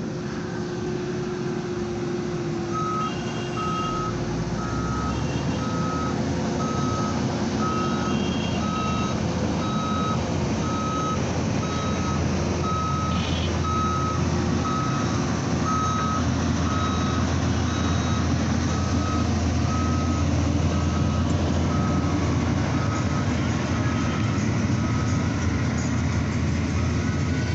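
Reversing alarm of a heavy road-construction vehicle beeping steadily about once a second, starting about three seconds in, over the vehicle's engine running.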